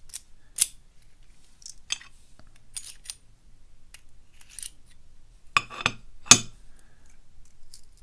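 Sharp metallic clicks and clinks of a Gerda euro profile dimple lock cylinder being taken apart by hand, as the key is worked in the plug and the plug slides out of the housing. The clicks are scattered, and the loudest come about five and a half and six seconds in.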